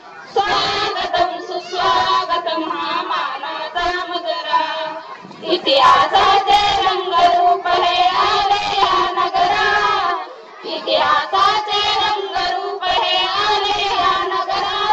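A small group of women singing a song together into one microphone, reading the words from a sheet, in phrases of held notes with short breaths about five and ten seconds in.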